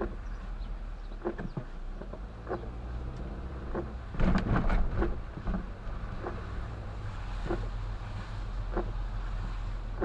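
Windshield wipers sweeping about every 1.25 seconds in the rain, over the steady low rumble of the car's engine and tyres on a wet road, heard from inside the car. A louder rush of noise comes about four seconds in.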